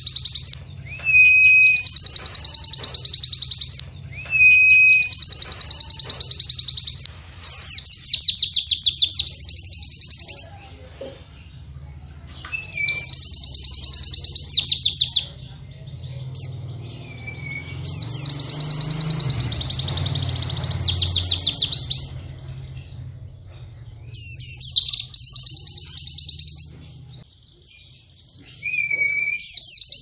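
White-eye (pleci) singing a dense, canary-like song: loud high phrases of fast rolling trills, each a few seconds long, about eight of them separated by short pauses. Several phrases open with a brief thin whistle, and a faint low hum runs underneath.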